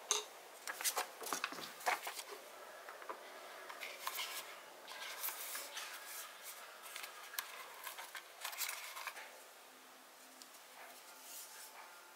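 Packaging handled by hand: taps and rustles of a plastic-sleeved screen-protector film and a cardboard pencil-case box, with a few sharp clicks in the first two seconds, growing quieter after about nine seconds.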